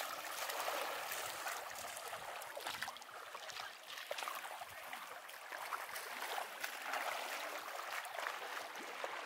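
Small waves lapping and splashing in the shallows at the shore: a steady trickling wash flecked with many small ticks of water.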